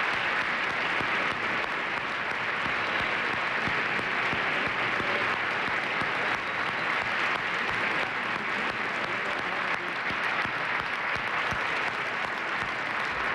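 A large audience applauding steadily, dense even clapping.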